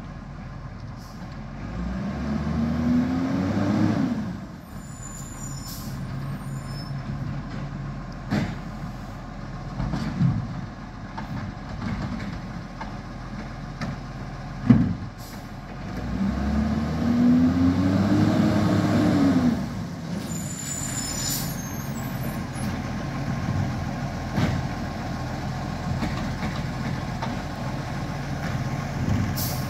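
Garbage truck working along the kerb: a steady diesel engine drone that twice revs up and falls back as the truck lifts and empties bins. Several sharp bangs come in the middle, and air brakes hiss twice.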